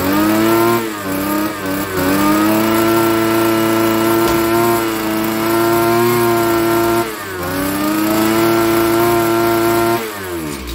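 Warm two-stroke engine of a Spear and Jackson petrol strimmer held at full throttle. The revs dip briefly about a second in and again about seven seconds in, then fall back toward idle near the end.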